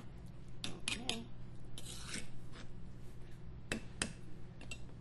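A spoon scraping and clicking in a bowl as guacamole is stirred and mashed: a handful of short, separate scrapes and knocks over a steady low hum.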